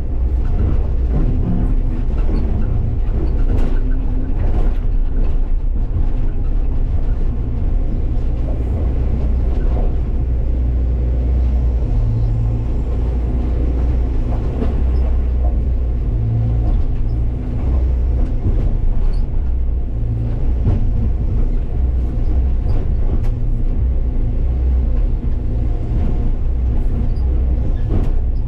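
Hyundai excavator's diesel engine running steadily under load, heard from inside the operator's cab, with hydraulic work noise and occasional knocks as the bucket sets rocks in place.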